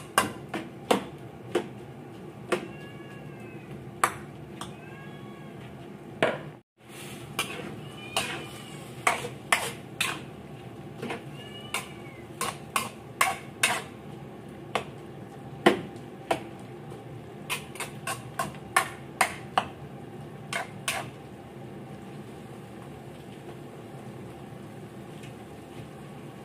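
A metal spatula scraping and knocking against a wok as pork, carrots and green beans are stir-fried, in irregular clicks and taps that stop about three-quarters of the way through. Under them runs a steady low simmer. A few short rising-and-falling squeaky calls sound in the first half.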